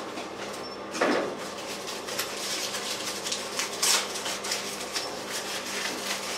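Electric centrifugal blower of a gas forge running steadily, set not too high: a steady rush of air with a low hum. A few short knocks and rustles break in, about one and four seconds in.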